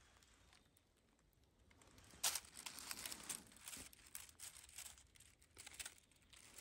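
Dry fallen leaves crackling and rustling as a hand reaches in and picks up an arrow from the ground, starting about two seconds in with a sharp tick, then irregular crinkling.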